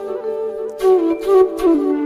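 Flute music: a single flute plays a slow melody of held notes that step up and down, with three louder, breathy note starts in the second half.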